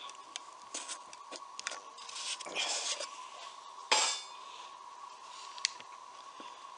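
A thin steel heat-sink plate handled on a mahogany tabletop and lifted away: light metallic clicks and a short scrape, then one sharp clack just before four seconds in. A faint steady high whine runs underneath.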